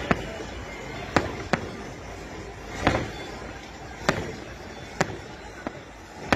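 Fireworks shells bursting overhead: a string of about eight sharp bangs at uneven intervals, roughly one a second.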